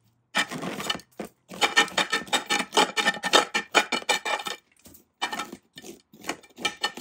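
Rapid scraping and scratching as a tool works a root-bound black pine loose from its tight bonsai pot: packed roots and soil rasping against the pot. The scraping thins out to a few separate knocks over the last couple of seconds.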